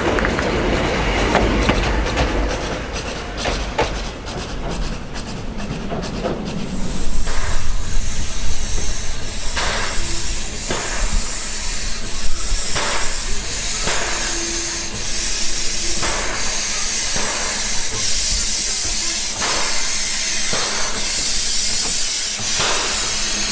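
Steam railcar (the Pichi Richi Railway's Coffee Pot, Steam Motor Coach No. 1) running slowly with a steady hiss of steam and soft exhaust beats about once a second. For the first several seconds there is instead a low rumble of the train moving off.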